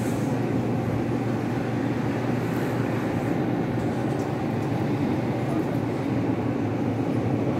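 Open-front refrigerated display chiller running with a steady, even hum of its fans and refrigeration unit.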